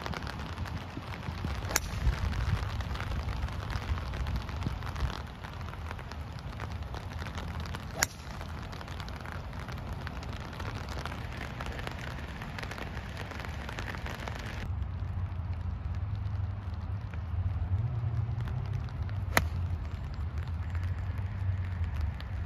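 Driver clubhead striking a golf ball off the tee: a single sharp crack about two seconds in. Two more sharp cracks follow later, over a steady low outdoor rumble.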